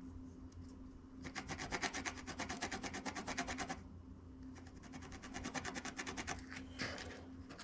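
Soldering iron tip being rubbed and scraped clean of oxidation, in two long runs of rapid scratching strokes.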